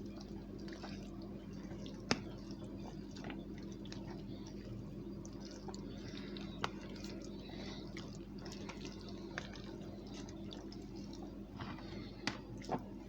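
Spoon stirring a thick vegetable stew in a dish: soft wet squishing with scattered light clicks of the spoon against the dish, over a steady low hum.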